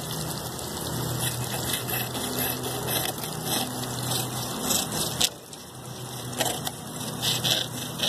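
Water splashing onto a small model water wheel, while the wheel-driven hacksaw blade rasps in short strokes through a balsa-wood log. A sharp click comes about five seconds in.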